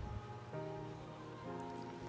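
Soft background music: sustained chords that change about half a second in and again about a second and a half in.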